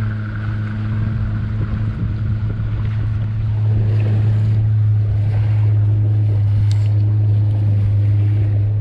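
Boat engine running steadily at a constant pitch, a loud even hum with a low rumble, getting slightly louder a few seconds in.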